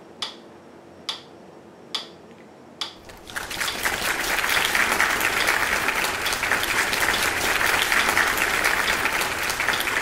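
Sharp single clicks a little under a second apart, then applause from about three seconds in: many hands clapping fast and dense.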